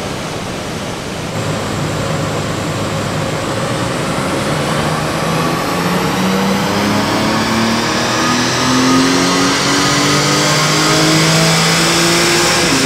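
BMW G80 M3's S58 twin-turbo straight-six making a full-throttle pull on a rolling-road dyno, its pitch climbing steadily for about twelve seconds and falling away at the very end. This is the car's baseline power run before tuning, reading 542 horsepower.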